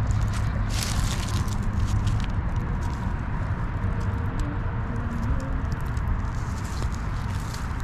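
Footsteps crunching on river gravel and rocks, an irregular run of sharp crunches that is densest about a second in, over a steady low rumble.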